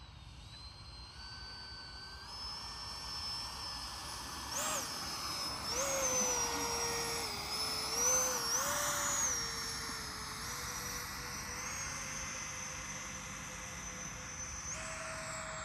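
80mm electric ducted-fan model jet (FMS Rafale) in flight, the fan giving a high whine over a rushing noise. The pitch steps up and dips several times as the throttle changes, and it is loudest about six to nine seconds in.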